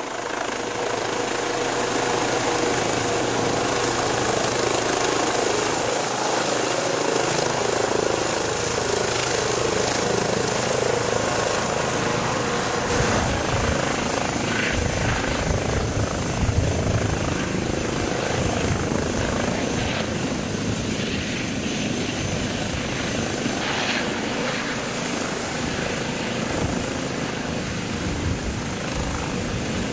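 Medical helicopter hovering low and setting down on a grass field, its turbine and main rotor running steadily. The low blade thump grows stronger about halfway through.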